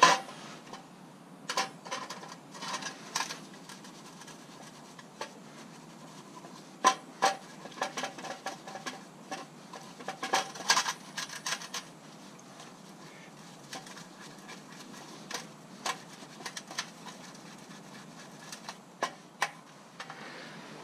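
Paintbrush scrubbing a steel bicycle cassette in a metal tray of petrol, with irregular clicks, scrapes and splashes as the sprockets and pliers knock against the tray.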